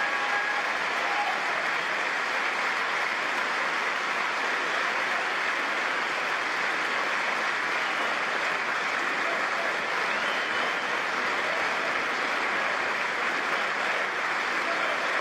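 Sustained applause from a large chamber full of lawmakers giving a standing ovation, an even clapping that holds steady throughout.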